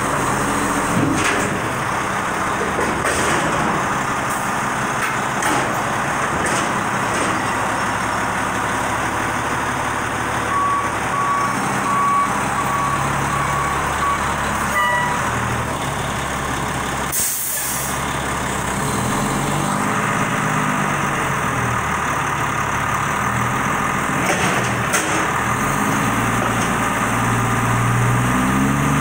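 Volvo WX garbage truck's diesel engine revving to drive the Labrie Optimizer's hydraulic lift arms as they raise a dumpster over the cab and tip it into the hopper, the revs climbing near the end. A row of short beeps runs from about eleven to fourteen seconds in, and a short hiss of air comes about seventeen seconds in.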